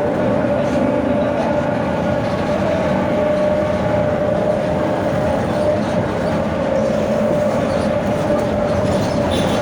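Mercedes-Benz OF 1721 Bluetec 5 bus running steadily, its OM924LA 4.8-litre four-cylinder diesel and road rumble under a steady whine from the differential, the drivetrain noise that gives the bus its 'roncando' (growling) differential.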